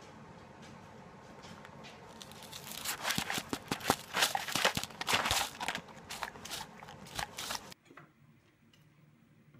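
Dog eating off a disposable plate right by the microphone: rapid crunching and crinkling clicks that build up about two and a half seconds in and cut off suddenly near the end.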